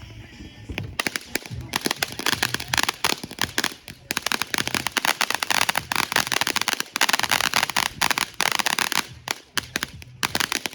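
Fireworks crackling: a dense, rapid run of small sharp pops that starts about a second in and keeps going without a break.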